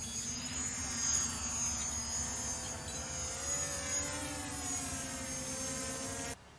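DJI Mavic Pro quadcopter's propellers whining as it lifts off and climbs with a payload slung beneath, a steady buzzing hum with a high whine on top, its pitch rising slightly. The sound cuts off suddenly near the end.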